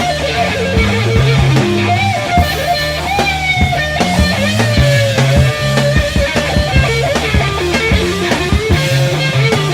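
Live acid-rock instrumental: lead electric guitar playing bending, gliding notes over electric bass and drums.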